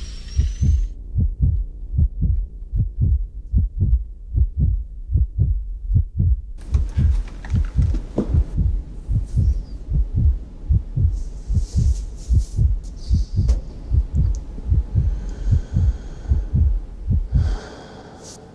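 Heartbeat sound effect: a rapid, even run of deep thumps, with faint hiss and thin ringing tones over it, fading out near the end.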